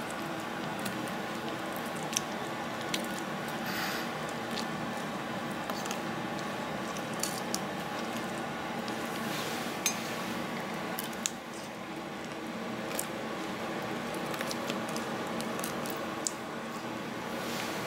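Raw prawns being peeled by hand on a plastic cutting board: wet squishing and scattered small clicks as the shells come away, over a steady background hum.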